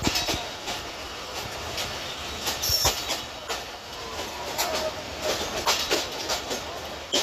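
Passenger train coach wheels clattering over rail joints and points as the train pulls out of the station: irregular sharp clacks and knocks over a steady running rumble.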